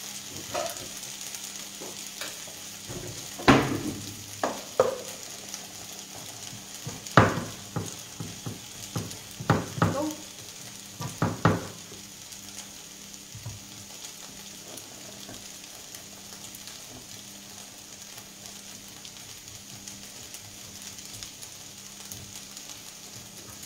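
Artichokes sizzling steadily in a frying pan, with a run of sharp knocks and clatters on the counter in the first half.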